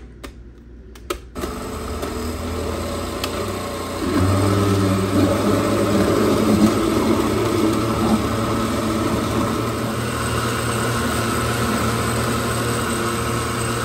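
Osterizer countertop blender running, blending a full jar of flan custard mix. A couple of clicks as the lid is pressed down, then the motor starts about a second and a half in. It gets louder about four seconds in and runs steadily after that.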